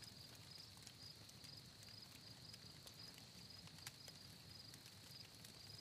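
Near silence: faint crickets chirping steadily, with a few soft clicks.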